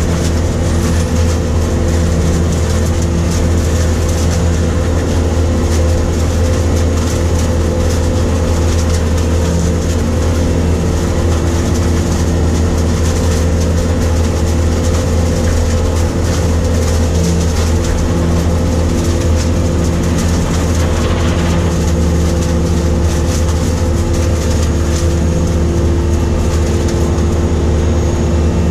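New Holland grape harvester running steadily while working a vine row, its engine and picking machinery heard from inside the cab as a loud, constant sound with a deep hum.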